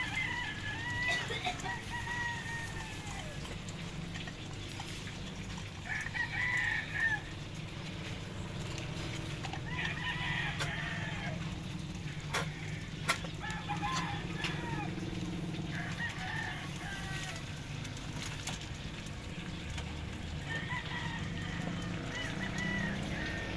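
Roosters crowing repeatedly in the background, about six calls, with chicken clucking, over a steady low hum. A few sharp clicks come about halfway through.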